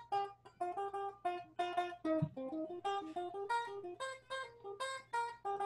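Guitar played one plucked note at a time, a melodic phrase with rhythmic figures, about three to four notes a second.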